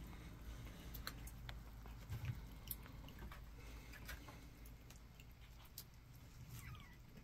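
Faint, scattered small clicks and rustles of kittens playing and wrestling on carpet.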